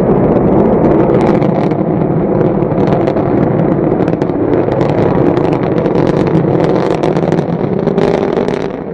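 Rocket engine exhaust, a loud steady roar laced with crackling, which starts abruptly and fades away near the end.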